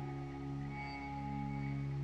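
Calm ambient meditation music: layered, sustained tones held steadily, with no beat.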